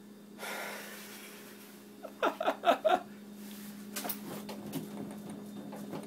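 A man's breathy exhale, then about two seconds in a quick run of five short voiced gasps. A few light clicks follow, over a steady low hum.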